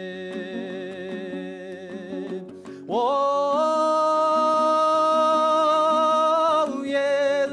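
Kazakh folk song of the Altai-Tarbagatai school being performed. After a quieter passage, a singer slides up into a long, loud held note about three seconds in and sustains it for nearly four seconds over the accompaniment.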